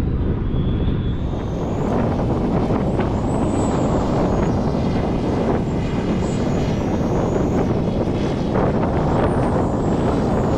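Steady low rushing noise of wind on the microphone.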